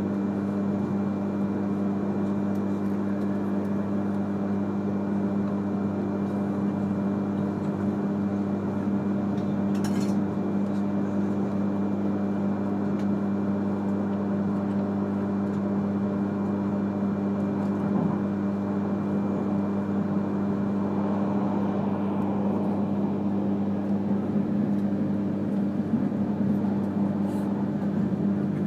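E3 series Shinkansen train running on the line, heard from inside the passenger cabin: a steady low hum over even rolling noise, with a brief sharp click about ten seconds in and a couple of faint knocks later.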